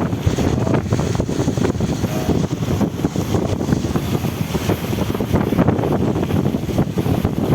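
Loud, steady rush of flowing floodwater, heavy and low, with wind buffeting the microphone.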